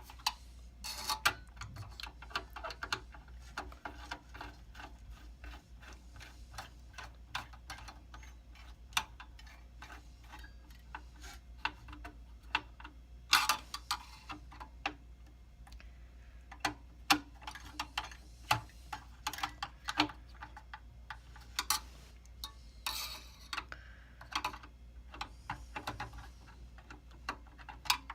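Irregular clicks and taps of metal and plastic parts being handled inside a computer server case while a CPU heatsink is refitted, over a steady low hum.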